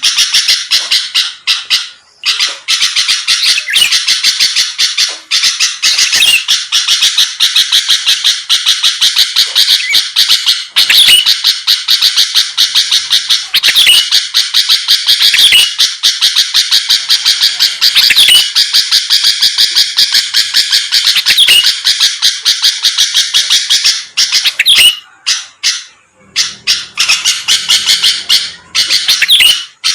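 Sooty-headed bulbul (kutilang) in full, prolific song: a fast, nearly unbroken stream of short chattering notes with a few rising notes, pausing briefly about two seconds in and again near the end.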